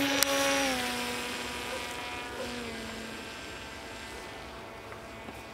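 Zagi flying wing's electric motor and propeller whining as the plane flies away, the pitch dropping in two steps and the sound fading with distance. A sharp click just after the start.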